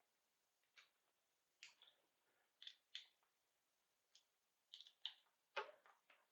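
Faint, irregular clicks and taps of small parts being handled and fitted together by hand, about a dozen light knocks, the loudest a little after five seconds in.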